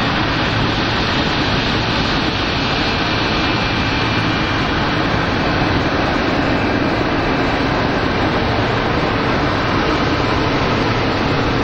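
Airbus A220-300's Pratt & Whitney PW1500G geared turbofans at taxi power as the airliner taxis: a steady rushing noise with a faint high whine.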